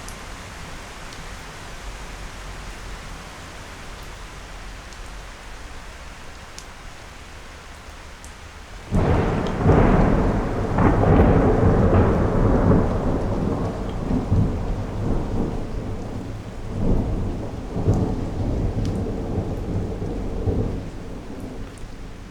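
Steady rain falling for about nine seconds, then a close thunderclap breaks in suddenly and rolls on as a long rumble with several swells before fading back to the rain near the end.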